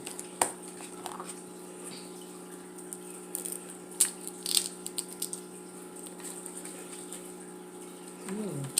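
Wet chewing and mouth sounds of someone eating a crab cake dipped in tartar sauce, with a few short clicks. A steady low hum runs underneath.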